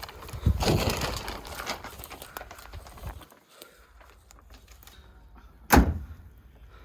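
Rustling and handling noise for about two seconds, then a single sharp thump a little before the end.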